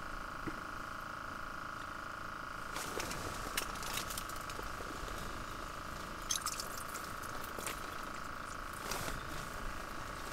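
Soft, scattered clicks and rustles of a fishing rod, reel and line being handled while a small perch is brought in and unhooked, over a steady high hum.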